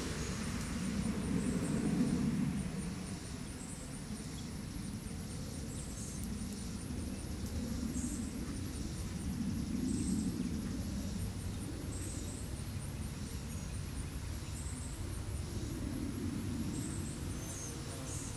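Outdoor background: a low rumble of distant traffic that swells and fades, loudest about two seconds in and again near the middle. Above it runs a faint, fast, high-pitched pulsing and a brief high call that repeats about every two seconds.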